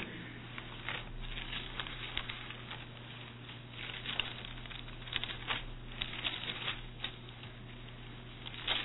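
Scattered soft rustles and ticks of thin Bible pages being leafed through, over a steady low hum.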